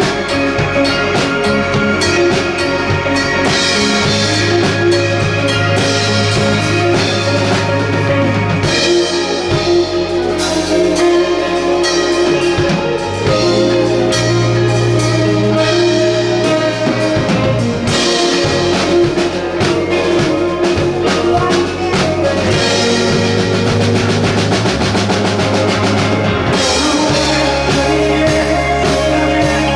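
Live rock band playing an instrumental passage without vocals: drum kit, electric guitar and bass.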